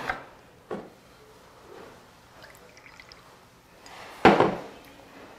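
Wet mouth sounds of eating kimchi close to a clip-on microphone: a short smack under a second in, then a loud wet slurp about four seconds in.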